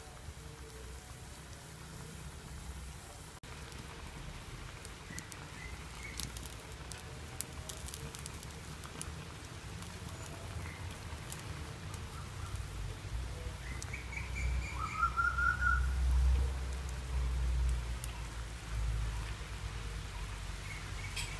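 Wood fire crackling with scattered sharp pops under a clay pot of simmering curry, over a steady hiss. A few short high chirps sound in the background, and a low rumble swells in the second half.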